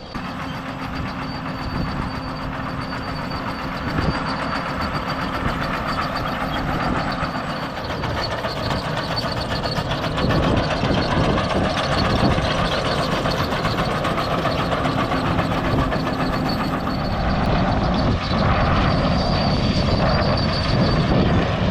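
Heavy earthmoving machine working on clay at the dam, its engine running with a constant rumble and a few steady tones. It grows louder over the stretch as it is approached.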